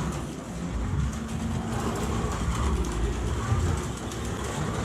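Carrera Digital slot car Mustang lapping the plastic track: its small electric motor running and the car rumbling along the track, getting louder and softer as it goes round.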